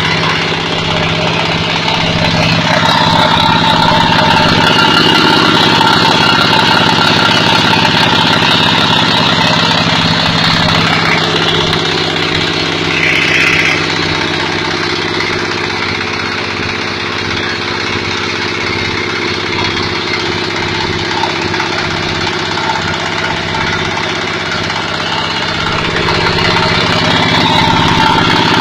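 Fish-feed pellet extruder machine running steadily, a continuous loud machine hum that eases off slightly in the second half.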